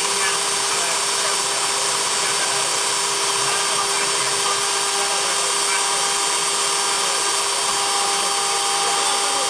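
CNC engraving-machine spindle cutting into a marble cylinder under a water coolant stream: a steady whine of several tones over the grinding hiss of the bit on stone.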